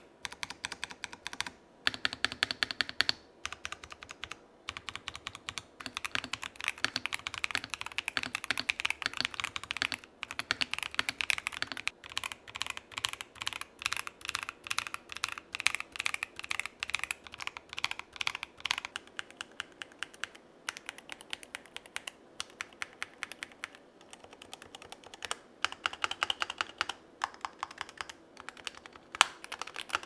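Fast typing on a mechanical keyboard in a sound test: a dense, continuous stream of key clacks, sparser and quieter for a few seconds about two-thirds of the way through.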